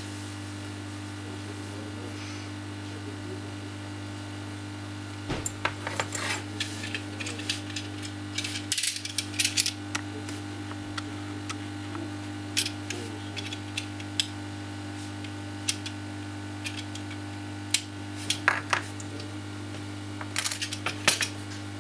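Irregular small metallic clicks and taps starting about five seconds in, from a BGA reballing stencil and holder being handled to free the cooled, freshly reballed chip. A steady low electrical hum runs underneath.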